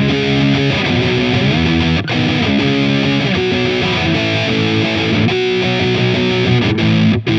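Donner Hush-X headless electric guitar played with an overdriven drive tone in its active pickup mode: sustained distorted chords and riffing, with brief breaks about two seconds in and near the end.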